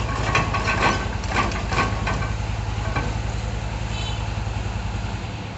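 Heavy diesel engine of a hydraulic piling rig running steadily, with several sharp metallic clanks in the first three seconds.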